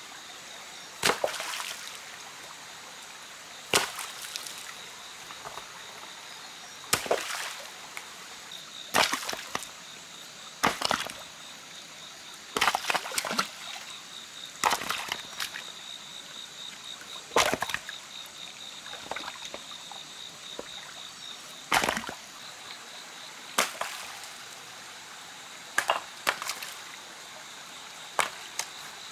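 Stream water running over rocks, with sharp stone-on-stone knocks as rocks are picked up and set down, about a dozen of them a few seconds apart.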